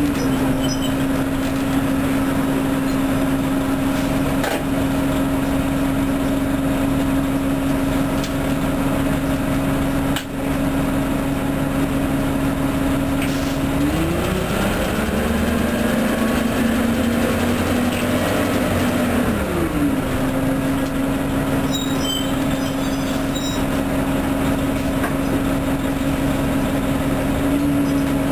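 Orion transit bus running, with a steady droning tone. About halfway through the tone drops and shifts for several seconds while a second, higher tone rises and falls, then it settles back to its steady pitch. A few knocks come through, the clearest about ten seconds in.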